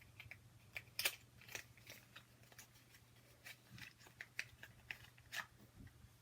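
Faint, irregular clicks and crinkles of small cosmetic packaging being worked open by hand, with a sharper click about a second in and another near the end.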